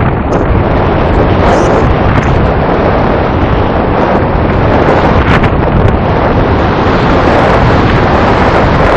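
Strong wind rushing over the microphone of a camera carried on a hang glider in free flight, a loud steady buffeting with a couple of brief stronger gusts. No engine is heard: the craft is gliding unpowered.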